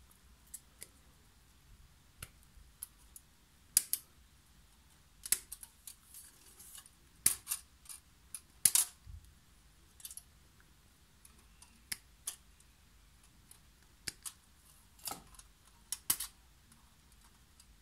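Plastic model-kit parts being snipped off a black polystyrene sprue with side cutters: irregular, sharp snaps, about one or two a second, with quiet between them.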